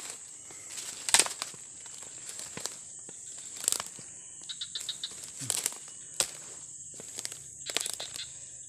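Footsteps and rustling through grass, dry leaves and undergrowth, in irregular crackles, with a steady high-pitched insect drone behind them.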